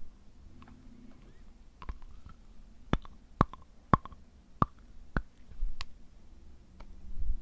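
A person biting their fingernails: a string of sharp, irregular clicks as the teeth snap through nail, with softer clicks between them. A low thump near the end.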